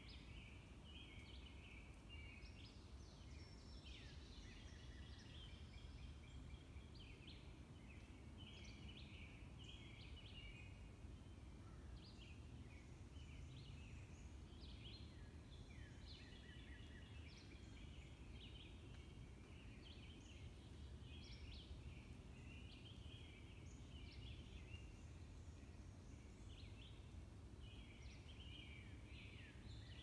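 Woodland songbirds singing faintly, a continual overlapping stream of short chirps and trills from several birds, over a steady low background rumble.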